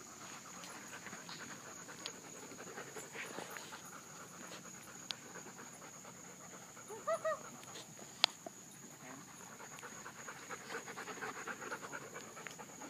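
Dog panting rapidly and rhythmically, with two short high squeaks about seven seconds in and a sharp click soon after.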